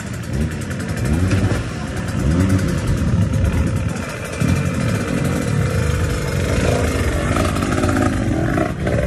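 Motocross dirt bike engine revved up and down again and again, its pitch climbing and falling with each blip of the throttle.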